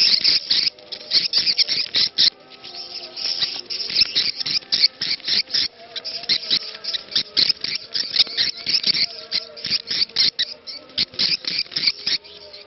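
Swiftlet 'ceklok' lure call: a dense, rapid chatter of high clicking chirps from many edible-nest swiftlets. A faint call to prayer wavers underneath.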